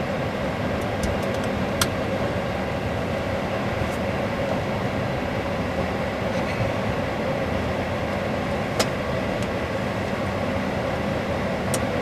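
Steady hum and air rush in an Airbus A321-200 cockpit at the stand, just after both engines are shut down, with the APU supplying air. A few sharp clicks stand out, about two seconds in, about nine seconds in, and near the end.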